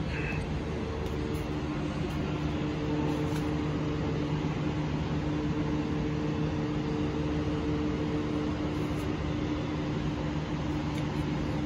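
A steady mechanical hum with a few steady tones in it.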